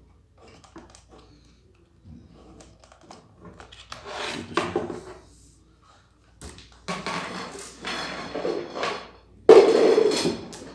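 Plastic pressure-washer parts and packaging being handled: scattered light knocks, then bouts of rustling and clattering, the loudest near the end.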